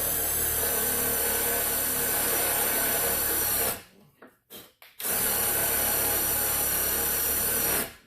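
Power drill running a Speed Out stripped-screw extractor bit into a stripped screw head, the cutting end boring a seat for the bit to grip. Two steady runs of the motor, with a stop of about a second around four seconds in.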